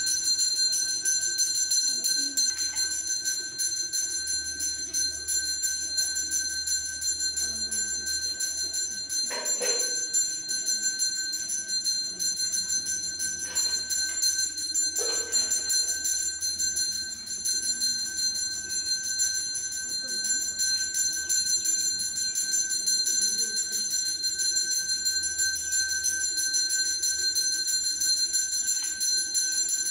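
Temple bell ringing rapidly and without a break, with a couple of short knocks about nine and fifteen seconds in.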